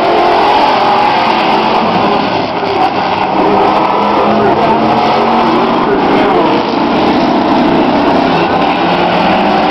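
Several demolition race cars and trucks running hard around an oval track, their engines loud and steady, with pitches wavering as they rev through the turns.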